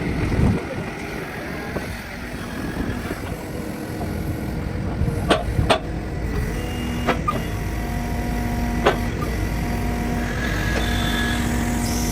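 Takeuchi TB2150R excavator's four-cylinder Deutz diesel running with a steady low rumble, a few sharp knocks in the middle, and a steady hum setting in about seven seconds in.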